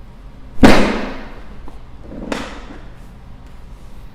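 Two thumps during a chiropractic adjustment, a heavy one about half a second in and a lighter one about two seconds later, each sudden and dying away over about half a second.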